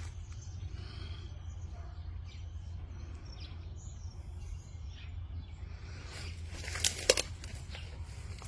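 Outdoor ambience: a steady low rumble of wind on the microphone under faint bird chirps. Two sharp snaps or cracks come close together about seven seconds in.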